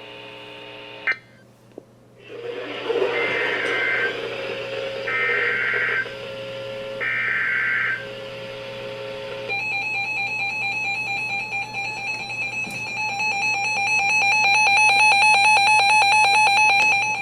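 Emergency Alert System SAME header: three one-second bursts of buzzing digital data tones, about a second apart. From about halfway through, the long steady attention tone that opens an alert follows and stops just before the end.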